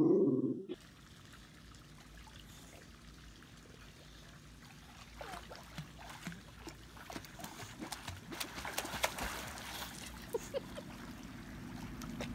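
Pool water lapping and splashing softly as a dog swims through it, the splashes picking up in the second half. It opens with a brief loud sound that cuts off within the first second.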